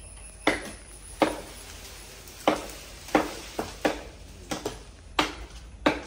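A hand blade chopping into the wood of a jackfruit tree branch: about ten sharp blows at an uneven pace, each with a short ringing tail.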